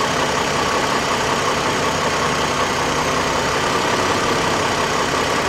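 2003 GMC Envoy's 4.2-litre inline-six engine idling steadily as it warms up after starting.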